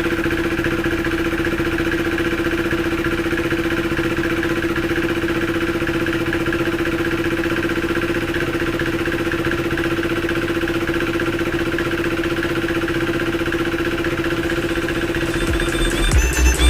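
KTM 390 Duke's single-cylinder four-stroke engine idling steadily with its top end freshly rebuilt, without revving. Music comes in near the end.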